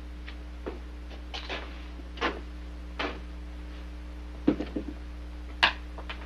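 Scattered light clicks and taps from small objects handled at a wooden table, with a little cluster about four and a half seconds in, over a steady low hum.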